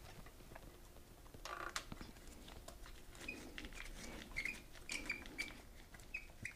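Faint small metal clicks and taps from a bolt and spacer being fitted through a chrome swing arm pivot cover and turned in by hand with a T-handle Allen wrench. Several short high squeaks come in the second half.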